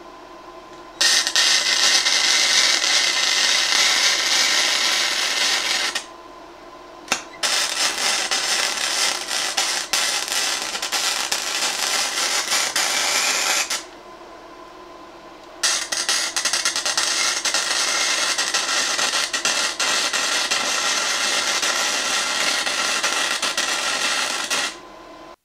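Forney Easy Weld 140 wire-feed welder running full weld beads on steel angle iron: three runs of steady arc crackle and hiss, each several seconds long. Between the runs the arc stops and only a quieter steady hum remains.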